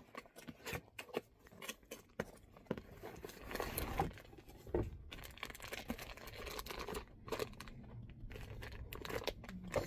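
Plastic packaging crinkling and rustling in irregular spurts as a plastic-wrapped blanket package is handled, with a few small knocks.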